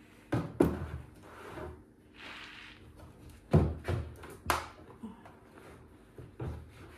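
Hands forcing a plastic chicken-feeder port into a hole in a hollow blue plastic barrel, giving several separate dull knocks and thumps, the loudest about three and a half seconds in.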